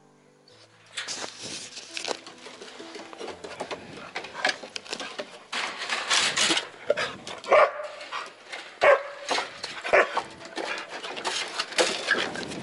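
A dog barking repeatedly, the loudest barks coming in the second half, over a steady clatter of the wooden enclosure door and its wire mesh.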